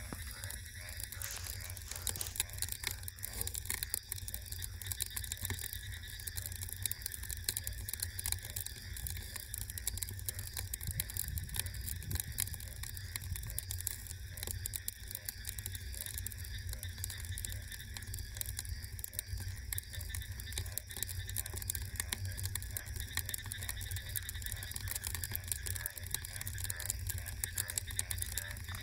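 Wood fire crackling: a dense, steady run of small pops and snaps over a low rumble.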